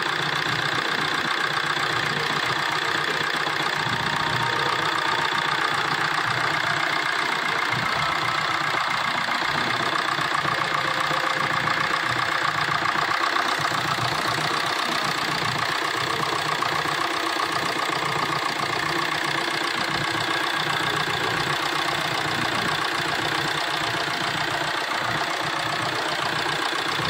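Maruti Suzuki Swift's diesel engine idling steadily with an even clatter, running after a new timing chain set was fitted to cure its misfire.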